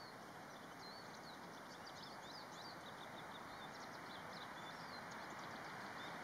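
Many small songbirds chirping and singing, short high calls and quick sweeps one after another, over a steady background hiss.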